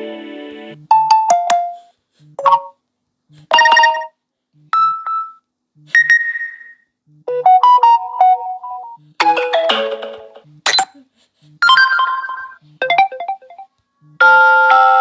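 Samsung Galaxy S22 notification sound previews playing one after another through the phone's speaker: about a dozen short chimes and jingles, each a second or less long, with a brief gap and a faint low tick before each one.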